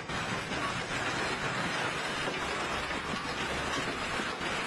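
Hail and heavy rain pelting down onto paved ground, a steady dense hiss.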